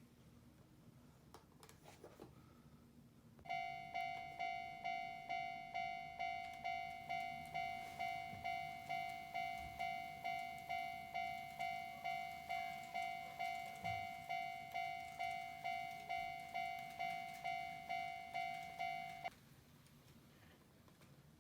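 Electronic railway warning bell, one ringing tone struck about twice a second. It starts about three and a half seconds in and cuts off sharply near the end.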